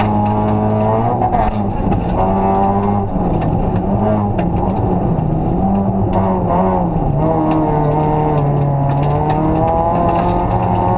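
Rally car engine heard from inside the cockpit while driving hard on a snowy stage, its revs rising and falling with the driving: a dip about a second and a half in, a lower stretch after the middle, and climbing again near the end. Frequent sharp ticks and knocks sound over the engine.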